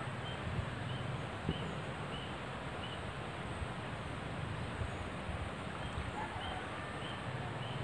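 Outdoor ambience: a steady background hiss, with a small animal's short high chirps repeating about every two-thirds of a second in two runs, one near the start and one near the end.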